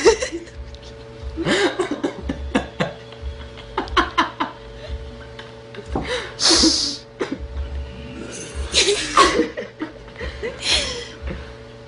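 Several short bursts of people laughing and chuckling, spread out with pauses between them.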